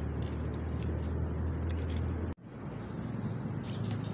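Outdoor background noise with a steady low hum, broken off by a sudden cut a little over two seconds in. A quieter background follows, with a few faint high chirps near the end.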